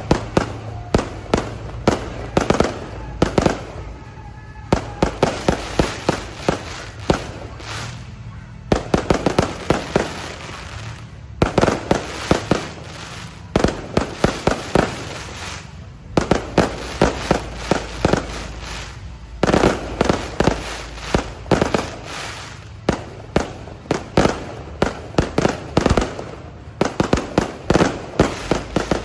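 Aerial fireworks display: rapid volleys of sharp bangs and crackling bursts, several a second, in clusters broken by short lulls, over a steady low hum.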